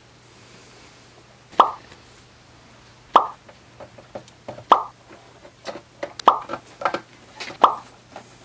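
A hand screwdriver driving screws into the sheet-metal base of a set-top digital video recorder: a series of sharp clicks, each ringing briefly. They come about every second and a half, then closer together near the end.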